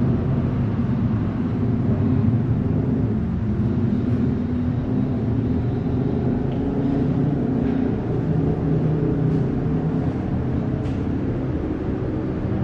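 A low, steady drone of deep tones that shift slowly, with a few faint clicks in the second half.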